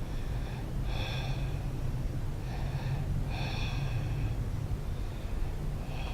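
A person sniffing through the nose several times in short breaths, over a steady low hum.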